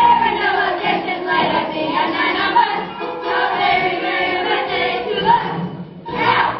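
A choir of children's voices singing.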